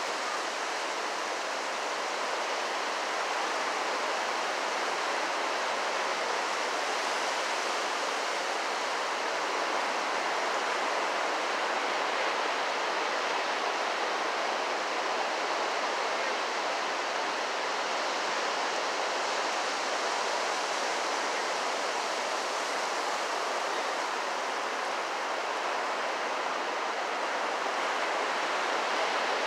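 Ocean surf breaking along a beach, heard as a steady, even hiss.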